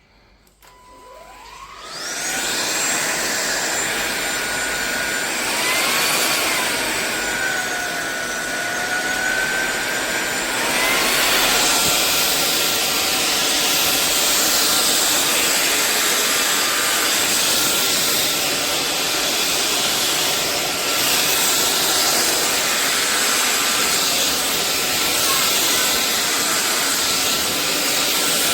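SunSare X7A cordless stick vacuum starting up about two seconds in, its motor whine rising as it spins up. The whine dips in pitch and recovers around the middle, steps up to a higher pitch near eleven seconds, then runs steadily.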